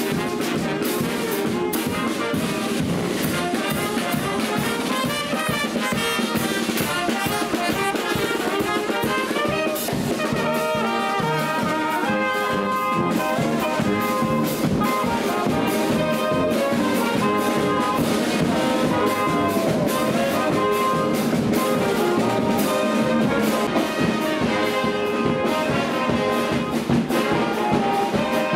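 Street brass band playing as it marches: sousaphone and other brass over a steady beat from a bass drum.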